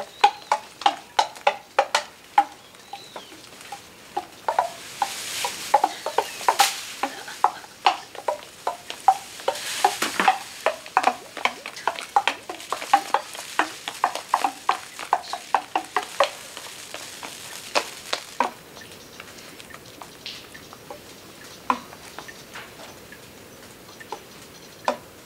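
Rapid, irregular clicks, each with a short pitched ring, about two or three a second, from small hard objects hung on a taut string line knocking as the line is worked. Bursts of rustling hiss come in around five and ten seconds in. After about eighteen seconds the clicks thin to a few scattered ones.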